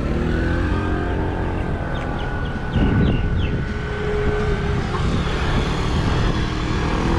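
Road traffic: motor vehicle engines running, with a steady whine and a surge in the rumble about three seconds in.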